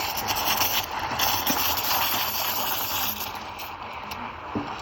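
Espresso machine steam wand frothing milk in a jug: a steady hiss, louder for the first three seconds or so and then easing off. The milk is still heating toward its target temperature.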